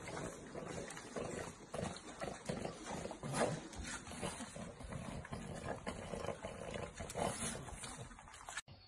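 Several French bulldogs grunting, snuffling and licking close up, in irregular short noisy bursts. The sound cuts off abruptly near the end.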